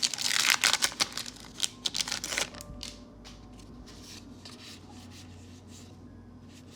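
Foil wrapper of a Magic: The Gathering booster pack crinkling for about two and a half seconds, then a few soft clicks and slides of trading cards being handled.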